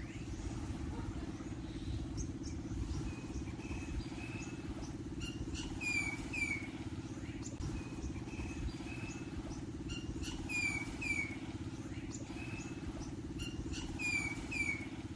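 A steady low motor hum with fine even pulsing, over which a bird gives pairs of short falling chirps three times.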